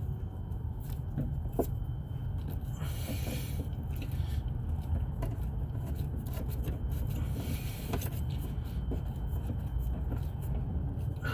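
Hand tools working the crankshaft sensor's 10 mm bolt on a Nissan Pathfinder: scattered faint metallic clicks and two brief scrapes, about three seconds in and near eight seconds, over a steady low rumble.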